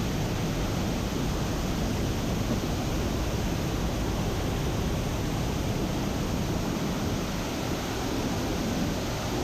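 Steady rushing roar of a large waterfall: a continuous, even wash of water noise, heaviest at the low end.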